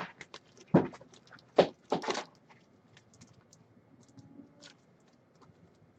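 Trading cards and their plastic holders handled on a table: a few sharp clicks and slides in the first couple of seconds, then only faint small ticks.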